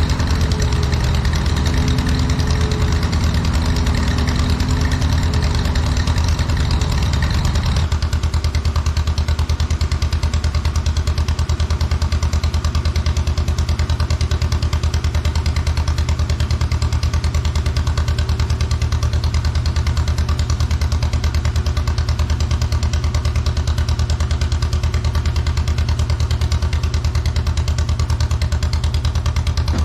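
Old tractor engine running steadily at low speed. A second, higher hum runs alongside and stops suddenly about eight seconds in.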